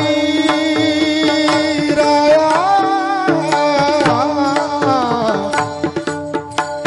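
A male kirtan singer singing a devotional melody in long held, bending notes, with drum strokes and a steady sustained note accompanying him.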